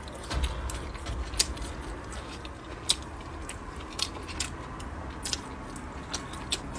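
Close-up sounds of a person chewing and biting food, with sharp crunches and clicks at irregular moments, about one a second.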